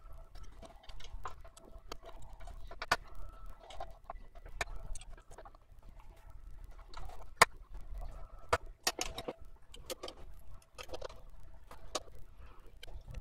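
Irregular sharp clicks and taps of a screwdriver, screws and hands on the Xbox One S's sheet-metal shield plate as the console is screwed back together.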